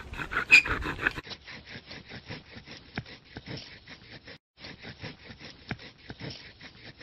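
Wooden friction fire drill being worked, a fast, even scraping about four to five strokes a second with a brief pause near the middle.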